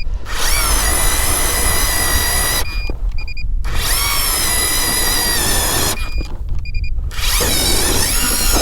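Battery-powered ice auger boring a hole through lake ice: a loud, steady motor whine that spins up, runs a couple of seconds, stops, and starts again, three runs in all.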